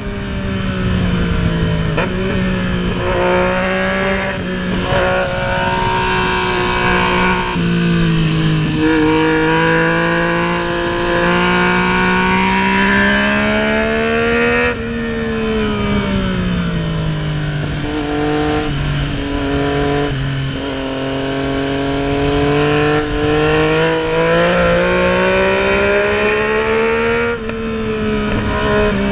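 Yamaha MT-09's three-cylinder engine under way at speed, its pitch climbing steadily and then dropping sharply at each upshift, several times over, with wind rushing past.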